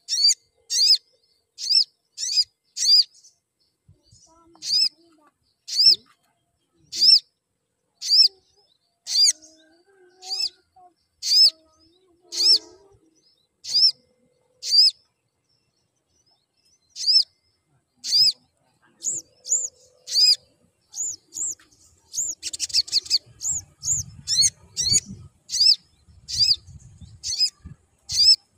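Male olive-backed sunbird (sogok ontong) calling: a long series of short, high, sharp chirps at about one a second. After a pause of a couple of seconds the chirps come faster, with a quick rattling trill, and there are low thuds from the bird fluttering in its cage near the end.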